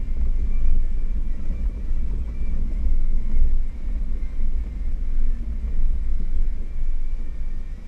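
An off-road 4x4 crawling over a rough dirt track, heard from inside the cab: a steady low engine and drivetrain rumble under uneven tyre and suspension noise, with a faint steady high whine.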